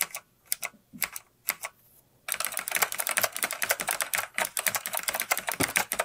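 Old keyboard with Alps key switches, which its owner takes for genuine white Alps, being typed on: a few separate keystrokes for about the first two seconds, then fast continuous typing with many clicks a second.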